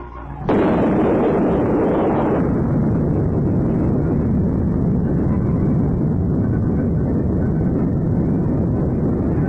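Newsreel soundtrack of a nuclear test explosion: a blast sound starts abruptly about half a second in and carries on as a loud, steady low rumble.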